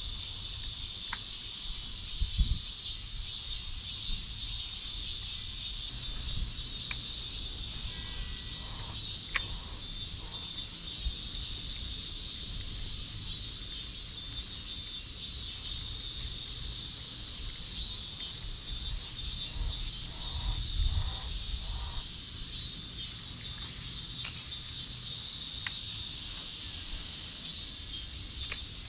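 Steady chorus of insects: a high, shrill drone with a pulsing edge, over a low rumble, with a few faint clicks.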